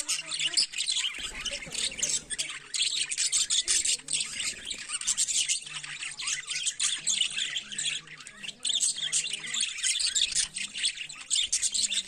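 A flock of budgerigars chattering continuously, many birds' rapid chirps and warbles overlapping.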